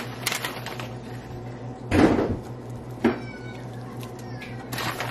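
Cream sauce with broccoli simmering in a skillet, crackling faintly over a steady hum. There is a louder clatter about two seconds in and a short knock about a second later, and near the end the crackle thickens as shredded cheese is sprinkled in.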